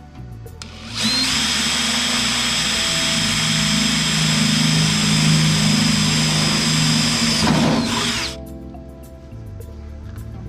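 Power drill running steadily for about seven seconds, then spinning down and stopping.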